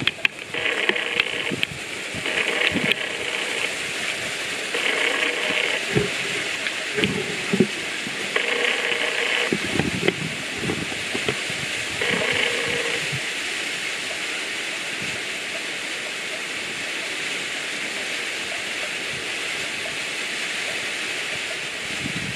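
Steady outdoor hiss of wind and rustling, with a run of short, repeated high calls in the first half, each under a second long, and a few scattered knocks.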